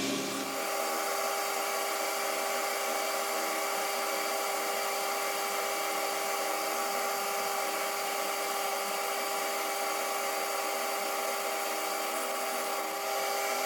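Metal lathe running steadily with a constant whine over a hiss, its tone shifting slightly about half a second in.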